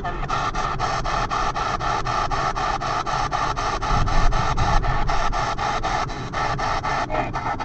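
P-SB7 spirit box radio sweeping the FM/AM bands: a rapid, even chop of static and clipped radio fragments, about five or six bursts a second, through its small speaker. A car's low road rumble runs underneath.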